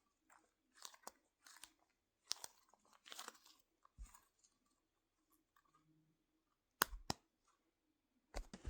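Faint scattered crackling and rustling from soft foam squishy toys being squeezed and handled, with two sharp clicks about seven seconds in.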